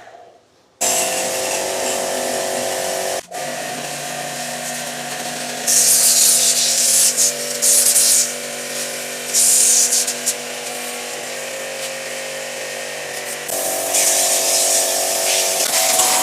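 Small electric washer pump running with a steady hum while its water jet sprays parts of an air conditioner, hissing loudly in three or four bursts around the middle.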